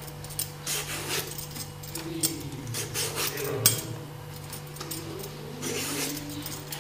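Metal vegetable peeler scraping strips of skin off an eggplant: a run of short, irregular scraping strokes and small metal clicks.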